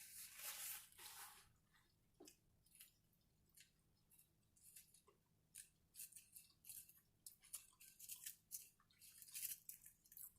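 Close-miked chewing of crunchy food: the crisp crackles of a sub sandwich and potato chips being chewed, coming in irregular clusters that grow busier in the second half.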